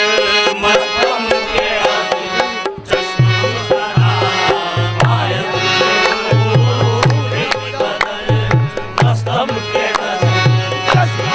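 Qawwali: singing over a harmonium, with a dholak drum keeping a steady beat of deep strokes that come in about three seconds in.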